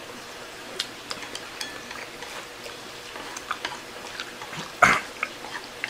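Eating sounds: scattered small clicks and taps of utensils against a plate while fried noodles are eaten, with one louder knock about five seconds in.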